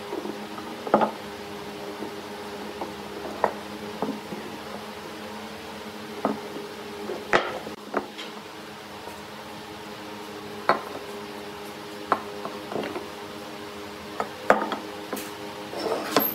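Wooden blocks knocking and clacking against each other and on a wooden workbench as they are picked up, set down and pushed together, a dozen or so irregular knocks over a steady background hum.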